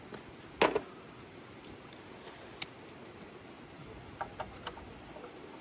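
Scattered metallic clicks and clinks of a socket wrench working a stubborn bolt, with one louder clunk about half a second in and a quick run of clicks near the end.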